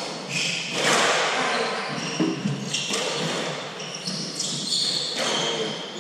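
Doubles squash being played: shoes squeaking briefly on the court floor and the ball being struck, in a large hall, with some voices in the background.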